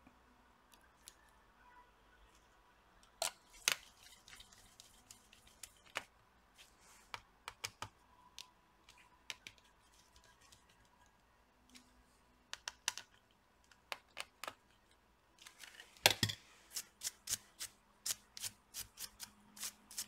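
Faint scattered clicks and light taps of a small screwdriver working the screws of a laptop's fan and heatsink, with a denser run of quick clicks near the end.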